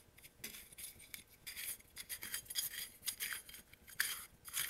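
Sheet-metal air-cleaner cover on a Kohler V-twin engine being unscrewed and lifted off by hand: a quick run of light metallic clinks and scrapes.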